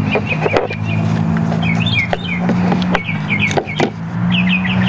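A steady low mechanical hum, with birds chirping in short repeated calls and a few light plastic clicks as an LED tail light is fitted into the golf cart's rear body.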